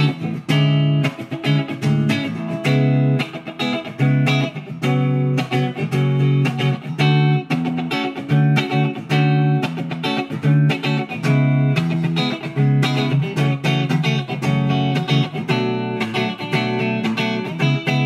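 Junior by K-Van L200 electric guitar played through an amp with a clean tone on the middle pickup-selector position, both pickups together. He plays a run of picked chords and single notes in a steady rhythm.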